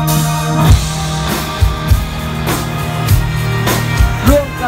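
Live band music played through a PA, with drum-kit hits over held chords.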